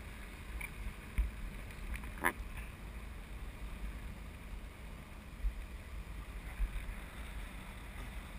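Wind buffeting the microphone of a camera hanging from a parasail high in the air: a steady low rumble with stronger gusts now and then.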